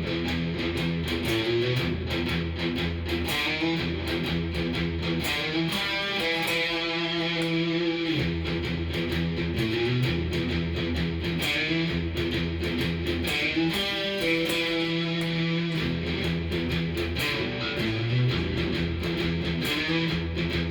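Cort S series electric guitar played clean through a Fender amp: chords ringing on, changing every second or two.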